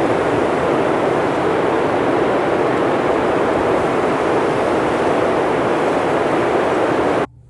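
Steady, loud rushing noise with no distinct tones, cutting off suddenly near the end.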